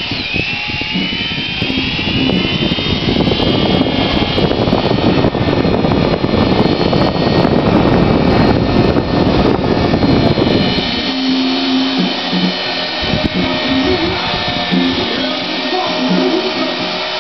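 Toy coaxial RC helicopter's small electric motors spinning up with a rising whine, then its rotors running at full throttle with a loud rush of air as it lifts off. About eleven seconds in the low rush drops away, leaving a steady whine with a pitched hum beneath it.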